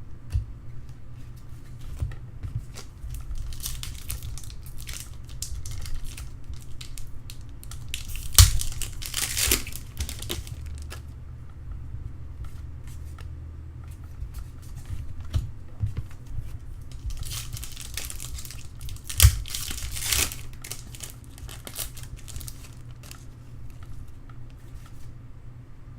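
Trading card pack wrappers being torn open and crinkled, in several rustling bursts with a couple of sharp knocks, over a steady low hum.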